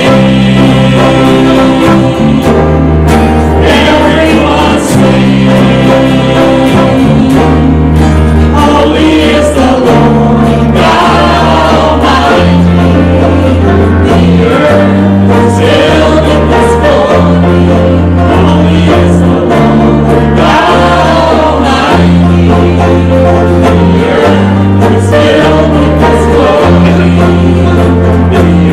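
Congregation singing a hymn with instrumental accompaniment and a steady bass line.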